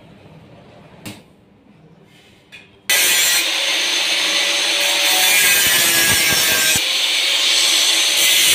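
Handheld angle grinder grinding the steel bars of a welded grill frame, a loud steady grinding noise with a steady whine in it. It starts abruptly about three seconds in, after two light metal clicks.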